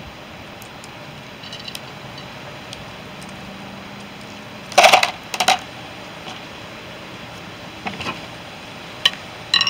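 Hard velvet bean seeds dropped into a plastic cup: a short clatter of clicks about five seconds in, followed by a few scattered faint clicks.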